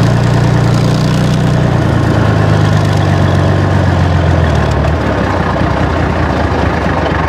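Infantry fighting vehicle's engine running under way, a loud low drone over a wide rumbling noise; the low engine note eases off about five seconds in.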